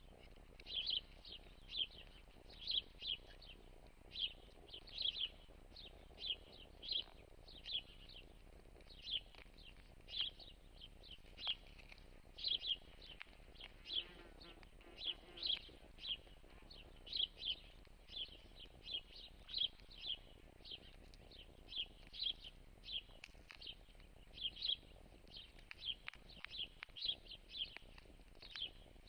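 A small creature chirping over and over: short, high chirps, about two a second, some in quick pairs, over faint steady background.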